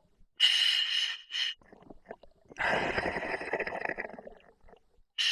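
Scuba breathing through a regulator in a full face mask: a hissing inhalation through the demand valve about half a second in, a bubbling exhalation in the middle, and a second inhalation hiss at the end.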